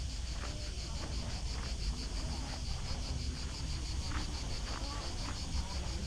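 Insects chirring in a rapid, even pulse high in pitch, over a steady low rumble and faint far-off voices.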